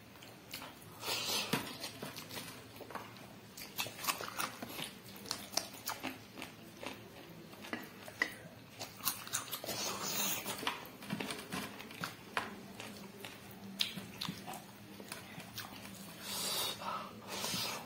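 A person chewing and biting food close to the microphone: an irregular run of mouth clicks and wet smacks.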